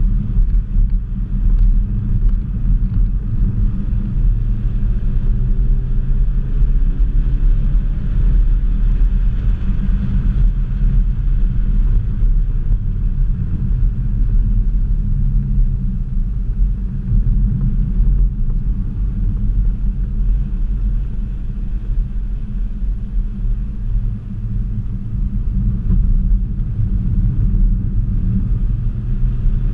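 Ford Focus ST's turbocharged 2.0-litre EcoBoost four-cylinder engine and road noise heard inside the cabin while lapping a race track: a loud, steady low rumble, with the engine note climbing several times under acceleration.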